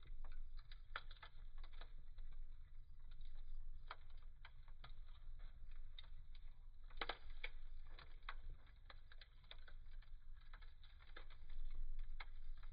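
Wood fire burning in a fireplace, with a steady stream of irregular sharp crackles and pops over a low rumble of the flames; a cluster of louder pops about seven seconds in.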